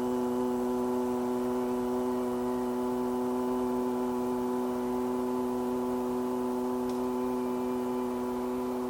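A man's voice holding one long, steady low 'ooh' on a single unwavering pitch: a Qigong healing sound voiced from the lower belly.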